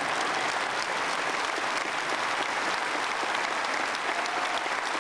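Large concert audience applauding steadily.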